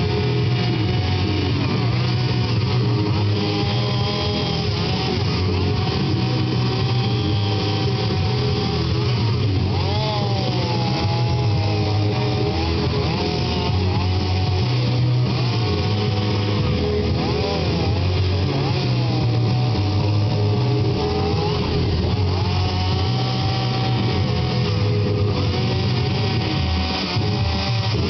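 Two-stroke chainsaw running while carving wood, its pitch wavering up and down as it cuts, with guitar music playing over it.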